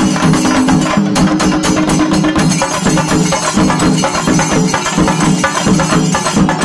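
Singari melam ensemble playing: chenda drums beaten with sticks in a fast, dense, unbroken rhythm, with cymbals and a steady held tone underneath.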